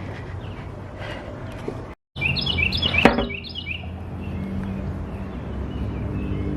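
A bird singing a quick run of short chirps about two seconds in, right after the sound briefly cuts out, with a sharp click in the middle of the song. Steady low outdoor rumble under it all.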